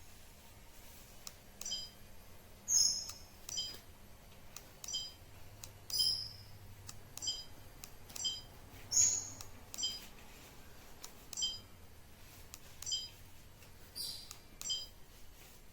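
Short electronic beeps from a small device, about a dozen at uneven intervals, like key-press confirmation tones, with a few brief clicks in between.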